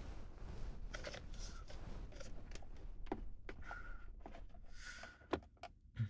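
Soft rustling and light clicks of handling and cloth, with two dull knocks near the end: the sounds of settling the listener lying down for ear cleaning.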